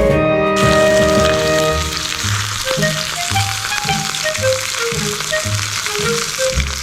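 Background music with a steady beat, with a constant sizzle of food frying in a pan that sets in about half a second in.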